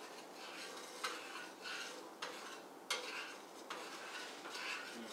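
A utensil stirring a brown sugar and spice mixture in a pan. It scrapes irregularly and knocks sharply against the pan about four times.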